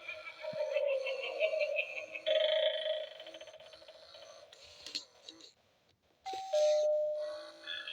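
A Gemmy animated eyeball Halloween doorbell toy playing its recorded spooky phrases and doorbell sounds through its small speaker, with chime-like tones. It goes quiet briefly a little past halfway, then sounds a steady held tone.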